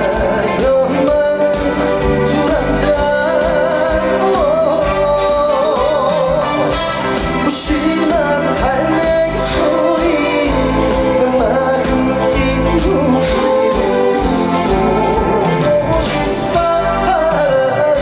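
Live trot music played loud through a concert PA: a full band backing a sung melody carried with wide vibrato.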